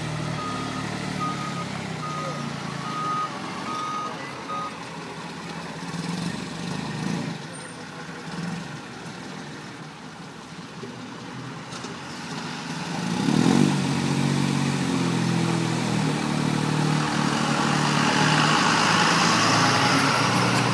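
A reversing alarm beeps steadily for about the first five seconds over a truck's diesel engine running. About thirteen seconds in, the engine gets louder and stays loud. Near the end a hiss builds up beside it.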